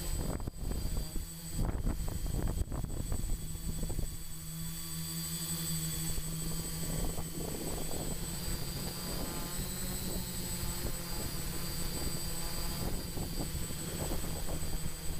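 Electric motors and propellers of a small radio-controlled aircraft in flight: a steady drone-like hum that holds a fairly constant pitch, with wind buffeting the microphone a few times in the first few seconds.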